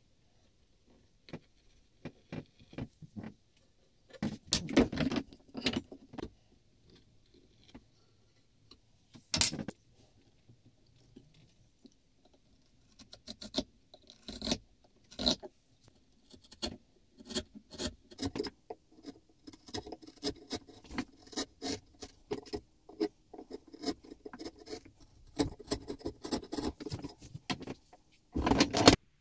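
A steel plane blade and small metal tools handled against a beech plane body, clicking, tapping and scraping. Scattered sharp clicks come in the first half, then a longer stretch of close-spaced scraping and rubbing, and a louder burst of handling noise at the very end.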